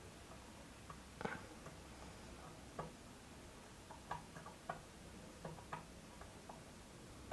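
Faint, irregular small clicks and taps from handling a wire, solder and a soldering iron against a small circuit board. The sharpest tap comes about a second in, and a cluster follows in the second half.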